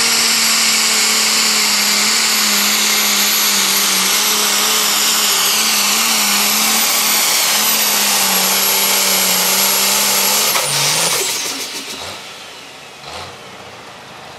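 Case IH stock-class pulling tractor's turbocharged diesel running flat out under load, with a steady high turbo whine over the engine. About ten and a half seconds in, the engine is backed off and the whine and engine sound fall away quickly, leaving a lower, quieter sound with one brief thump.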